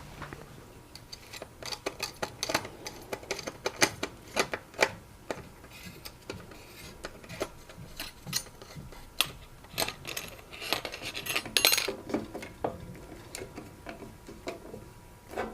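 Small metal clicks and clinks at irregular intervals as the mounting brackets are taken off an old electric hot plate element and fitted onto the new one.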